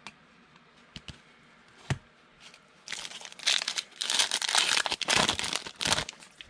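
A few light clicks, then the plastic foil wrapper of a Panini Prestige football card pack being torn open and crumpled, a loud crinkling lasting about three seconds.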